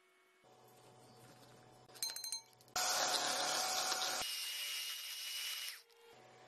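Electric hand mixer whipping double cream in a glass bowl. A short metallic clink comes about two seconds in. Then the beaters run with a loud whir for about three seconds, change in pitch partway and cut off near the end.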